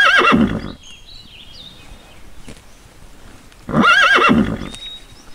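A horse whinnying twice: one call at the very start and a second about four seconds in, each a wavering neigh about a second long.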